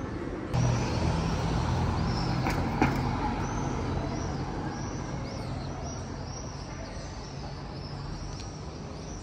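Street traffic: a motor vehicle's engine running, coming in suddenly about half a second in and slowly fading. Two sharp knocks come just before three seconds in, and a run of short, high, repeated chirps comes from about the middle onward.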